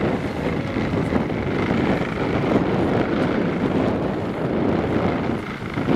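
Steady wind buffeting the microphone aboard a sailboat heeled under sail, with water rushing along the hull.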